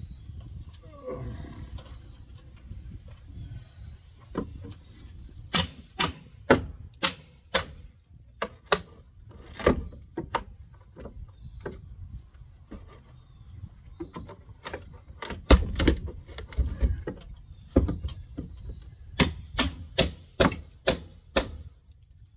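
Sharp knocks and bangs of wall demolition: hand tools striking and prying at wooden studs and boards. The blows are irregular, with runs of quick strikes about six seconds in and again near the end.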